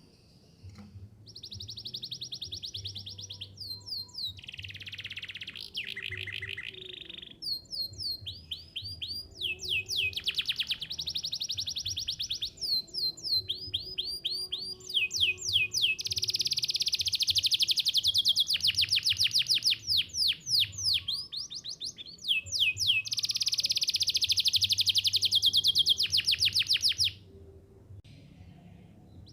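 Canary singing a long song of rapid repeated trills and quick sweeping notes in phrases with short breaks. The loudest, longest trills come in the second half. It stops about 27 s in and starts again right at the end.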